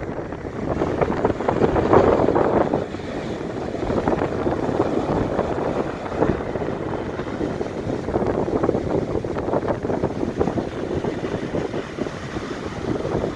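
Heavy hurricane surf breaking and washing up a sandy beach: a continuous rush of water that swells and eases with each wave, the loudest surge about two seconds in. Wind buffets the microphone throughout.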